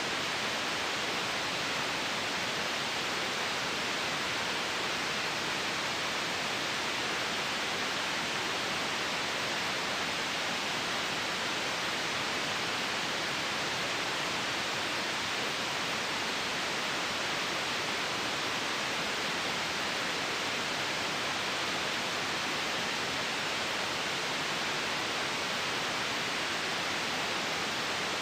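Steady white noise: an even, unchanging hiss with most of its energy in the upper middle range.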